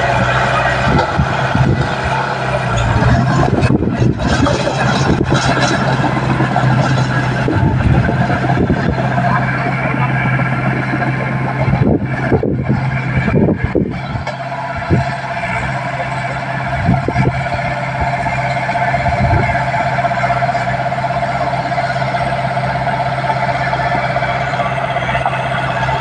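D20P mini crawler bulldozer's diesel engine running steadily under load as it pushes mud. Irregular knocks and clatter from the steel tracks and blade come through in the first half, then the engine note runs steadier.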